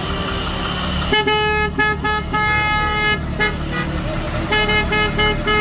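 Vehicle horn honking repeatedly, in a run of short and longer toots starting about a second in, over a steady low engine rumble.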